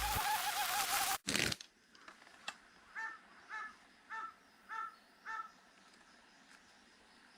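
A crow cawing five times at an even pace, each caw harsh and short, in quiet open-air ambience. Before that, loud music plays for about the first second and a half and cuts off abruptly.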